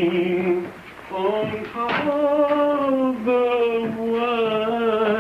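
A man singing a slow tune in long held notes with vibrato, with a short break about a second in.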